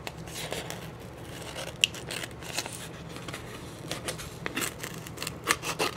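Small craft scissors snipping through a sheet of adhesive and its paper backing: a run of irregular short snips, coming closer together near the end.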